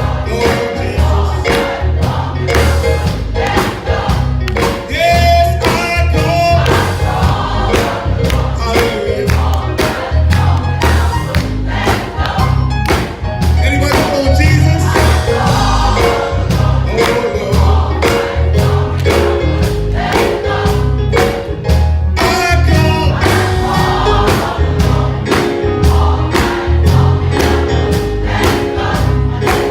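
Gospel choir singing with a band, over a steady beat and heavy bass.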